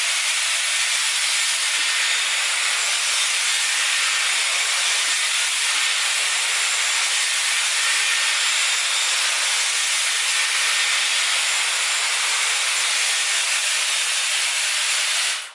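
Dyson Airwrap hair styler blowing a steady rush of air, with a faint high motor whine in it, switched off abruptly at the end.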